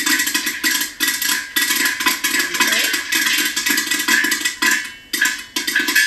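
Dense, irregular percussive clicking and clattering, many quick sharp hits a second with no let-up.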